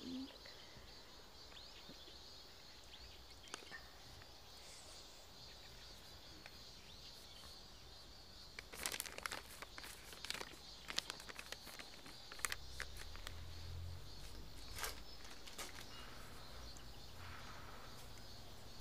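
Faint outdoor rural ambience with a steady high-pitched drone, and scattered small clicks and rustles between about nine and fifteen seconds in.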